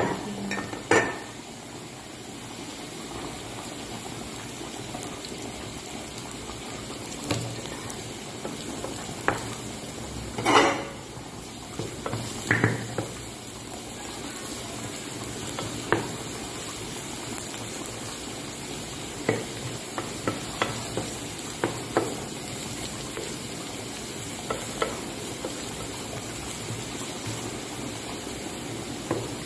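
Minced garlic sizzling in hot oil in a frying pan, stirred with a wooden spatula that knocks against the pan every few seconds; the loudest knock comes about a third of the way in. The garlic is being fried until it browns.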